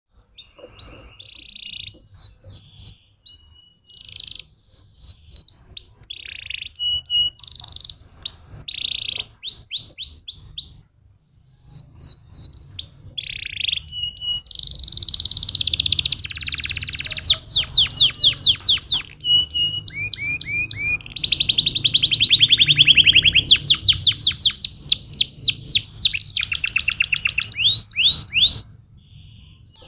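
Domestic canary singing: rising whistled notes and rapid rolling trills in phrases. It pauses briefly about eleven seconds in, then sings louder, faster trills through the second half.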